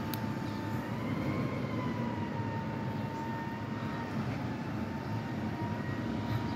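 Distant Mack MRU rear-loader garbage truck running, a low diesel rumble with a steady high whine over it that rises slightly about a second in and settles back.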